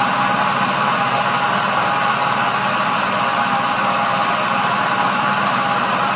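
Electric countertop blender motor running at a steady speed, liquefying okra in water: a constant whine over an even rushing whir.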